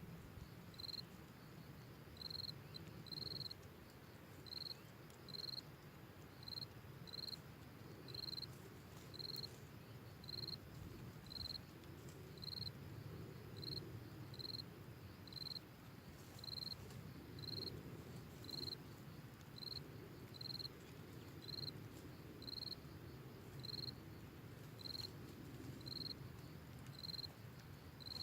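An insect chirping: one short high chirp repeated steadily about once a second, over a faint low rumble of background noise.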